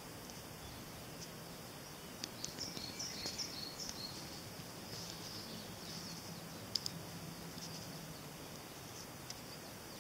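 Faint outdoor ambience: steady background hiss with scattered short high chirps, busiest through the middle, and a sharp click about two-thirds of the way through.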